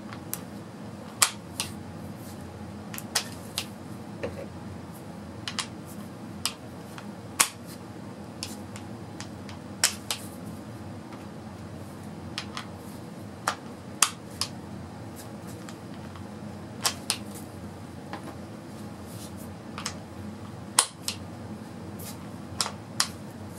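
Impact sockets being pushed onto and pulled off the hog-ring friction anvil of a DeWalt DCF899 impact wrench: more than twenty sharp metal clicks at irregular intervals, over a steady low room hum.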